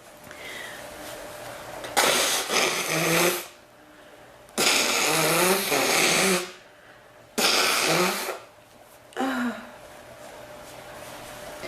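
A woman coughing in four harsh bouts, the first starting about two seconds in. Each bout is a loud, rough burst lasting one to two seconds and ending in a short voiced catch; the last is the shortest.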